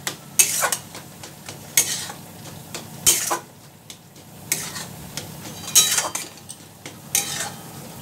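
Metal spatula scraping and knocking against a metal kadai, in separate strokes every second or so, as mashed brinjal is stir-fried with spices, over a soft steady sizzle.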